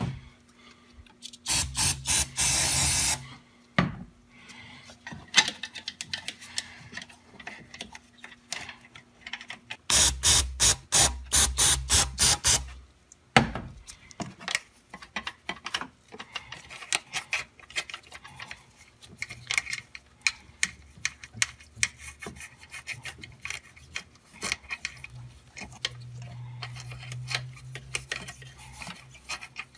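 Aerosol carburetor cleaner spraying into a throttle body in a steady hiss of about two seconds. Later comes a run of quick rhythmic bursts, about four a second, and between them a toothbrush scrubbing inside the throttle body bore: soft scratchy rubbing with light clicks.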